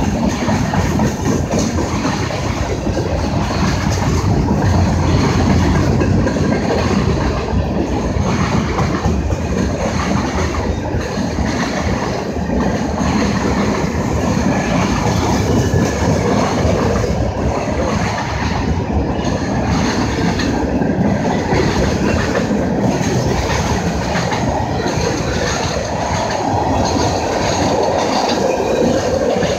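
Freight cars of a Norfolk Southern train rolling past close by, first gondolas, then boxcars: a loud, steady rumble of steel wheels running on the rails.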